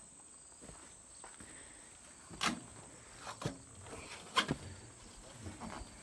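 A few sharp knocks and clicks, roughly one a second from about two and a half seconds in, over a faint steady high chirring of insects.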